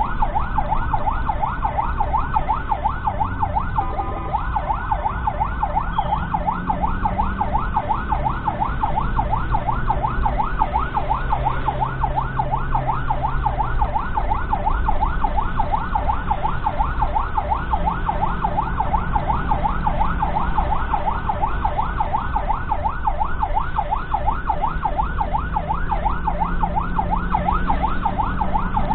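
Ambulance siren in a fast yelp, rising and falling several times a second without a break, heard from inside the ambulance's own cab over the low hum of its engine.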